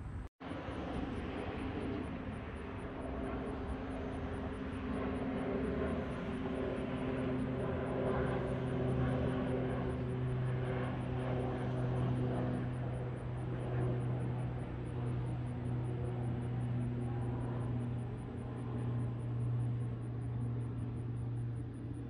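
A steady distant engine drone that strengthens about a third of the way in and then holds, with a faint fast ticking high above it.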